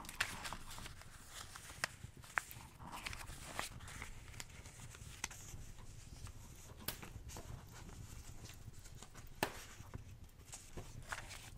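Wood fire crackling in a fireplace: irregular sharp pops and snaps over a low steady rumble, with soft paper rustling now and then.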